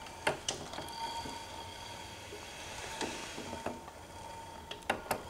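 Air-filled shock absorbers of a Permobil F3 power wheelchair giving a dull creaking as the suspension flexes under shifting weight, heard as a few scattered, irregular clicks and creaks. The owner links the noise to the shocks' rubber seals having been off for a long time.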